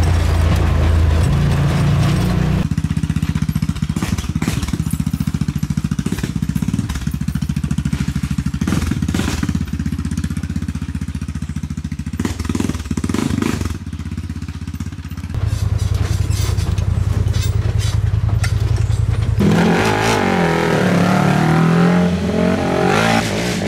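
Enduro ATV engines running, the engine note holding steady and then shifting pitch in abrupt steps, with a few knocks and clatters partway through. In the last few seconds an engine revs up and down.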